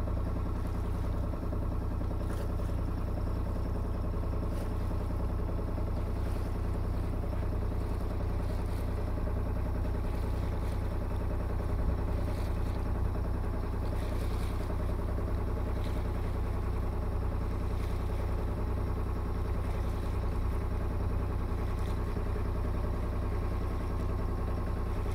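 Sailboat's inboard diesel engine running steadily under way, a constant low drone.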